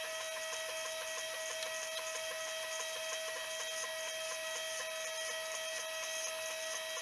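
Desktop FDM 3D printer printing a plastic part: its stepper motors run with a steady whine of several held tones as the print head moves over the build plate.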